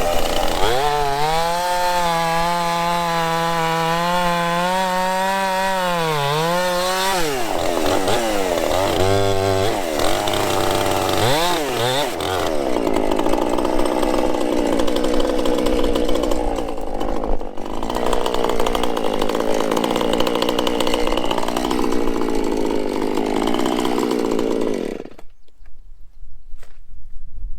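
Chainsaw cutting into a fallen tree's trunk. It runs at a steady high pitch, blips up and down a few times, then makes a rougher sound through the wood and falls away suddenly near the end.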